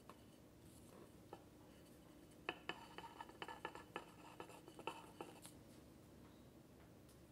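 A quick run of small metallic clicks and scrapes as a metal offset spatula spreading whipped cream knocks against a marble cake stand, with a short ring after the sharper clicks.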